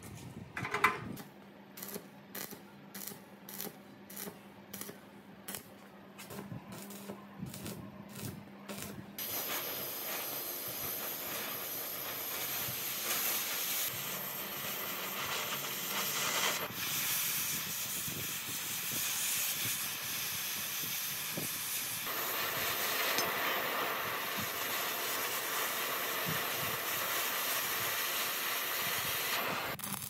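A series of rhythmic scraping strokes, about two a second, then a steady loud spraying hiss of air or spray for most of the rest.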